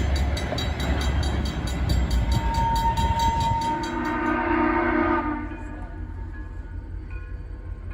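A train running past with a steady low rumble and regular clicking from the wheels. A horn or whistle sounds from about two and a half seconds in. Both fall away about five seconds in, leaving faint tones.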